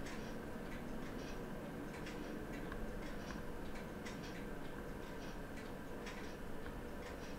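Faint, irregular light clicks of steel tweezers touching small parts of a quartz watch movement as they are placed around the date ring, over a steady low hum.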